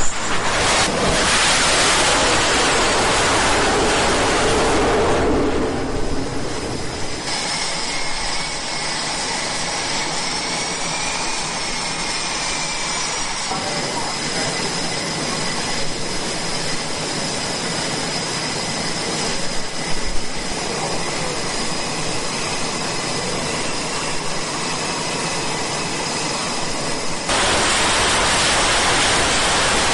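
Jet engines of F/A-18-type carrier fighters running on a flight deck: a broad rushing jet noise, then a steady high turbine whine. About 27 seconds in, it steps up to a louder rush as a jet on the catapult goes to launch power.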